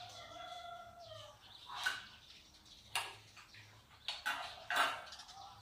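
An animal call held for about a second and falling slightly in pitch, then spoons clinking against soup bowls four times.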